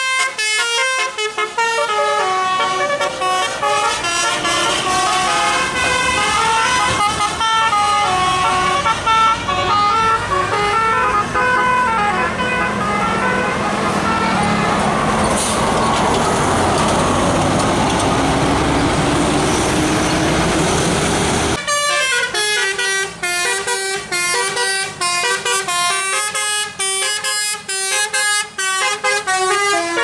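Tour buses' telolet musical air horns playing quick melodic tunes, note after note. In the middle a bus passes close, its engine noise rising under the horn. About two-thirds of the way in the sound cuts abruptly to another horn tune.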